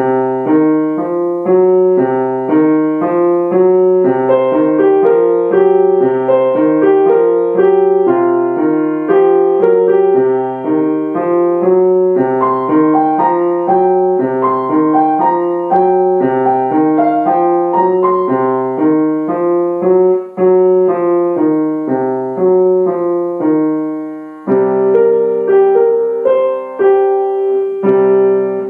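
Acoustic grand piano played solo: a lively piece in a steady run of short, quick notes, with a brief break late on before the playing picks up again.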